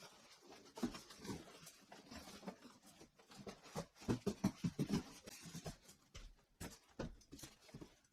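A PC case being pulled up out of its cardboard box: irregular rustling, scraping and knocking of cardboard and packing, busiest and loudest about four to five seconds in.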